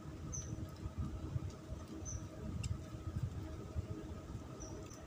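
Outdoor ambience: uneven wind rumble on the microphone under a steady faint hum, with three short high-pitched chirps spaced out across it.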